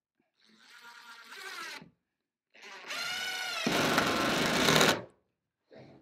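Cordless impact driver driving screws through a metal hinge into an OSB lid: a short, fainter run, then a longer run whose motor whine rises and breaks into rapid impact hammering near the end, as the screw seats.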